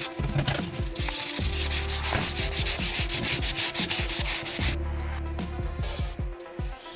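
Sandpaper rubbing on a steering wheel's vinyl rim in quick back-and-forth strokes, easing off after about five seconds.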